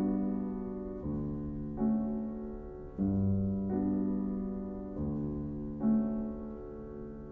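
Background piano music: slow chords struck about once a second, each fading away before the next.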